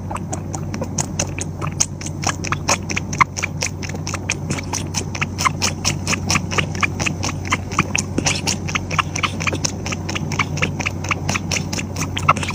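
A tabby cat suckling from a baby bottle: quick wet sucking clicks, several a second, in a steady rhythm.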